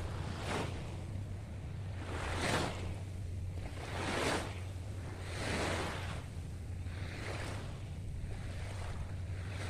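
Small waves breaking and washing up on a sandy beach, the surf swelling and fading about every one and a half to two seconds, over a steady low hum.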